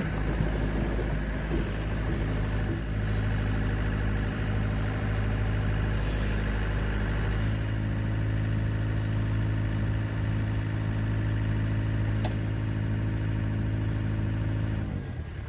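An engine idling steadily at an even pitch, which cuts off near the end.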